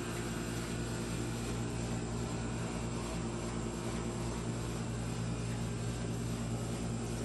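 A machine running steadily nearby: an even, low hum with several steady tones over it, unchanging throughout.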